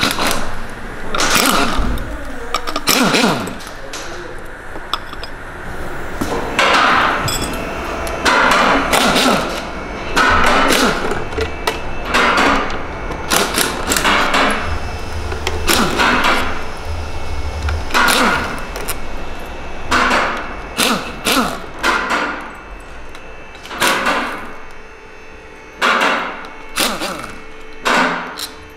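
Metal hand tools knocking and clattering against a car engine as it is unbolted and stripped down: short sharp clanks at irregular intervals, some ringing briefly.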